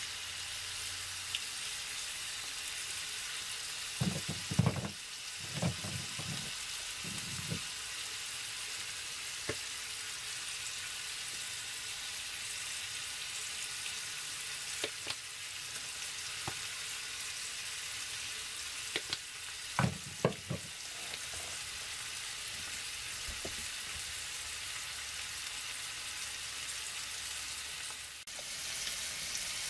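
Chicken pieces sizzling steadily in a frying pan over a gas burner. A few short knocks stand out about four seconds in and again about twenty seconds in.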